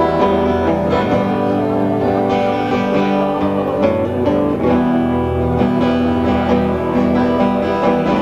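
Live acoustic band music, led by strummed and picked acoustic guitars with sustained notes held over them.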